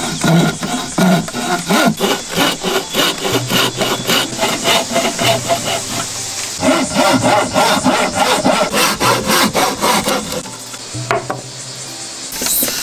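Wooden frame saw cutting through a wooden board by hand, in quick, even push-pull strokes of about three to four a second, with a short lull near the end.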